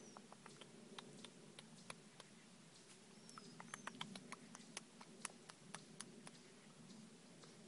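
Irregular sharp crackles and ticks in dry leaf litter and twigs, bunching into a quick cluster in the middle, over an otherwise quiet forest, with two short high chirps near the middle.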